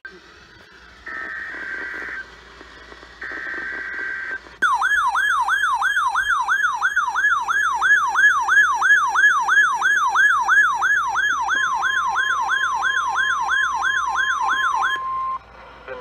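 NOAA Weather Radio Required Weekly Test: two short bursts of SAME digital header data tones, then a weather alert radio's loud warbling alarm siren that rises and falls about three times a second for about ten seconds. The steady 1050 Hz warning alarm tone joins it near the end, and both stop about a second before the end.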